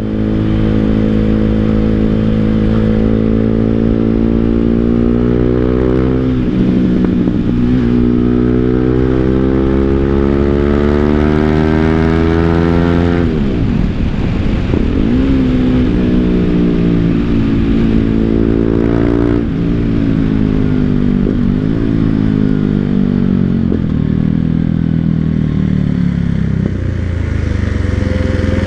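BMW G 310 GS single-cylinder engine breathing through an Akrapovic full-system exhaust while the bike is ridden. The revs climb steadily and the pitch drops sharply at each gear change, about six times.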